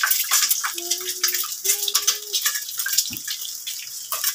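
Whole boiled eggs sizzling and crackling in hot oil in a saucepan as they fry, with a light knock about three seconds in.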